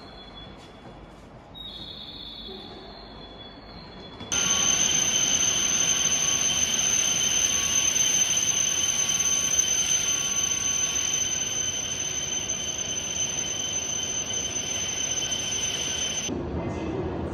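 Quiet platform ambience, then about four seconds in an E7/W7-series Hokuriku Shinkansen train is heard pulling into the platform: a loud, steady rush of train noise with a high-pitched whine and squeal held throughout. It stops abruptly shortly before the end.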